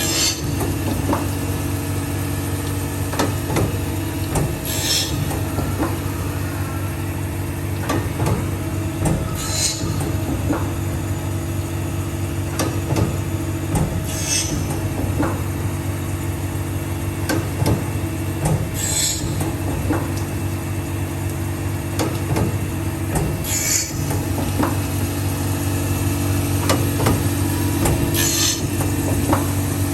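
CNC saw-blade sharpening machine running steadily with a motor hum and light mechanical ticking as it grinds a carbide-tipped circular saw blade. A short high hiss comes back about every five seconds as the machine works each tooth in turn.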